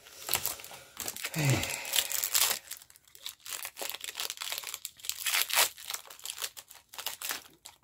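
Foil Pokémon card booster pack wrapper crinkling in irregular crackles as it is torn and handled.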